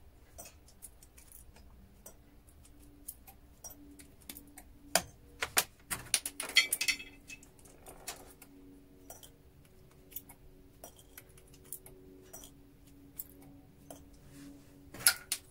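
Small metal clicks and clinks of relay switch parts being pulled apart by hand and dropped into a container, scattered through the stretch with a busier cluster of clinks about five to seven seconds in.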